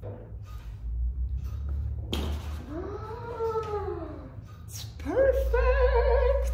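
Two long, drawn-out vocal calls over a steady low hum. The first rises and then falls over about two seconds. The second slides up about five seconds in and holds.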